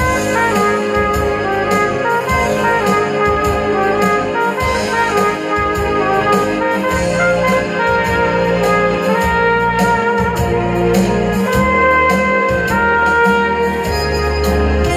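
Trumpet playing a melody in long held notes over accompanying music with a rhythmic bass line.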